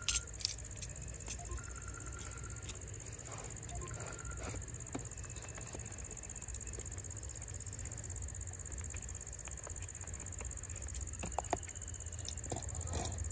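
Steady high-pitched insect buzz, with short chirping trills now and then near the start. Light clicks and scrapes come from a cardboard phone box being handled and opened, with a few more near the end.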